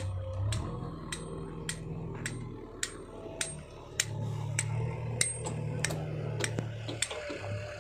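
Sharp, evenly spaced taps, a little under two a second, over a low hum that breaks off briefly a couple of times.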